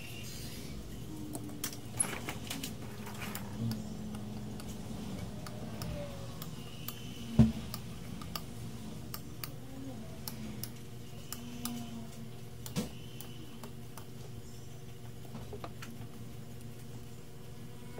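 Scattered small clicks and taps of tools working on a circuit board during capacitor replacement, over a steady low hum; the sharpest tap comes about seven seconds in.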